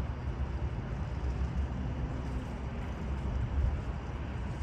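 Steady low rumble of a car's cabin, the vehicle sitting with its engine running.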